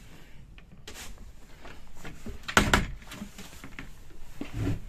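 A few knocks and clunks from a wooden cabin door and fittings being handled. There is a light click about a second in, a sharp knock about two and a half seconds in, and a duller thud near the end.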